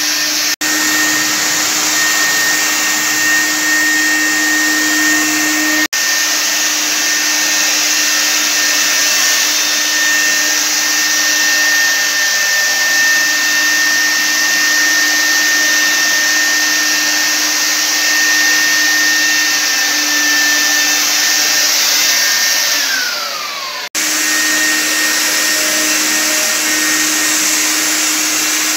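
Handheld electric ULV cold fogger's blower motor running steadily with a high whine over the hiss of its air and spray. About three quarters of the way through, the whine falls in pitch as the motor winds down and breaks off, then the fogger is heard running steadily again.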